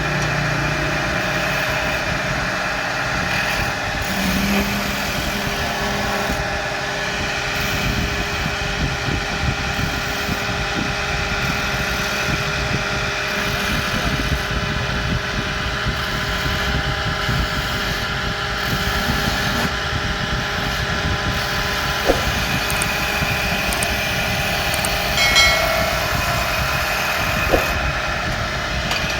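Woodworking machine running steadily: a continuous motor hum with several steady whine tones, and two sharp clicks near the end.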